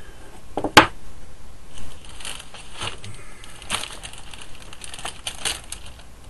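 Handling noises on a craft table: one sharp tap about a second in, then bouts of rustling and crinkling of card or plastic sheets being picked up and moved.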